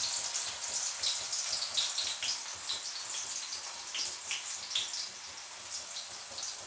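Tofu blocks frying in shallow oil in a steel wok: a steady soft sizzle with scattered small crackles and pops as the tofu browns.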